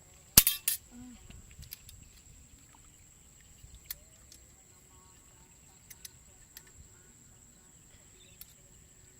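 Two sharp, loud knocks or slaps close together, followed by a few faint scattered clicks, over a thin steady high-pitched whine like insects.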